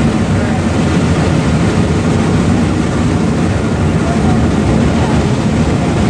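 Shay geared steam locomotive working along close by: a loud, steady run of rapid exhaust chuffs with the locomotive's running noise.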